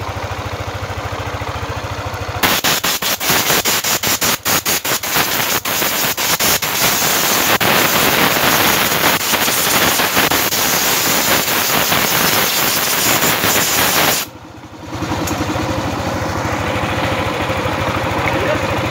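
First-generation Yamaha NMAX scooter engine idling steadily while it warms up to operating temperature to purge air from a freshly overhauled cooling system. From about two seconds in until about fourteen seconds, a loud, rapid, irregular crackling rattle covers the idle, then stops abruptly, and the steady idle is heard again.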